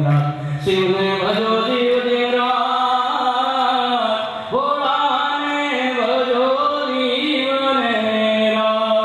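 A man chanting a prayer through a microphone, holding long notes that slide from one pitch to the next.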